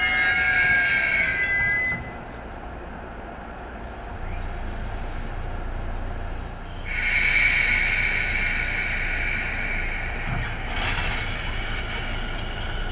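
Echizen Railway train wheels on the rails: a high, shrill squeal that cuts off about two seconds in, then a low running rumble, then from about seven seconds a louder, steady grinding hiss of steel wheel on rail.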